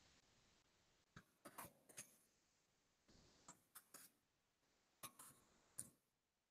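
Faint keyboard typing: short key clicks coming in small clusters of a few strokes each.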